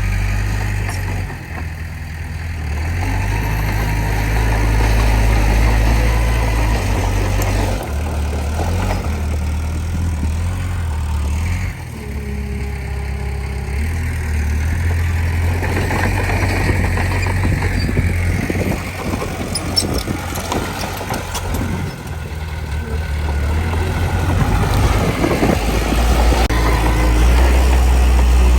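Heavy diesel engine of earthmoving machinery running, its note and load shifting up and down, with short bursts of clanking in the middle.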